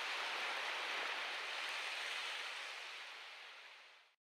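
Steady rushing noise with no tone or rhythm in it, which fades out over the last couple of seconds and then stops.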